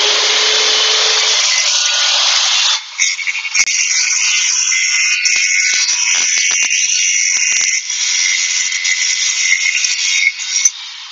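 WEN 6-1/4-inch plunge track saw finishing its spin-up with a rising whine, then cutting through a sheet panel as it is pushed along its guide track. The cut noise runs steadily, with a few knocks in the middle. The saw is switched off near the end and winds down.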